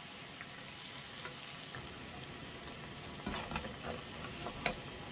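Battered vegan ham fritters deep-frying in a pan of hot oil: a steady sizzle. From about three seconds in come a few light knocks as a metal slotted skimmer works in the pan.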